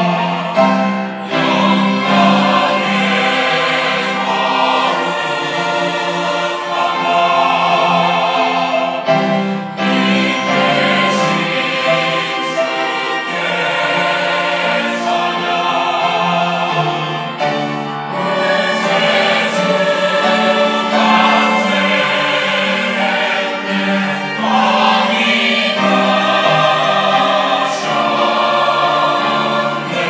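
Mixed church choir of men's and women's voices singing a Sunday anthem in parts, with long held notes.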